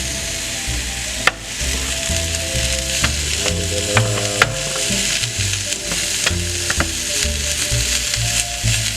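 Food sizzling steadily in a hot pan on the stove, with several sharp clinks of a utensil against the pan as it is stirred.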